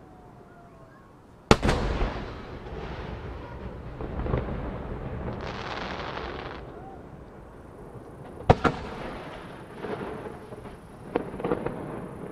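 Large aerial firework shells bursting: a sharp boom about one and a half seconds in, a second boom around eight and a half seconds in, each followed by a long rumbling tail, then a few smaller cracks near the end.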